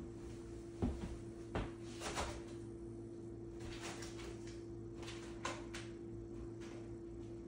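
A few short knocks and light clatter as the silver YouTube plaque is handled and set into its black presentation case on a table, the loudest three in the first couple of seconds, over a steady faint hum.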